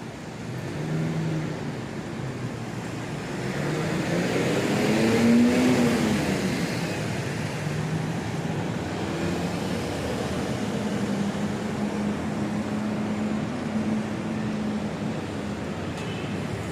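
City street traffic: a motor vehicle passes close by about five seconds in, its engine pitch rising and then falling, followed by a steady engine hum.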